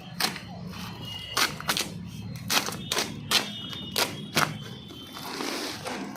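A parcel of fishing tackle being opened by hand: irregular sharp snaps and clicks of plastic packaging, about one or two a second, with a rustle near the end.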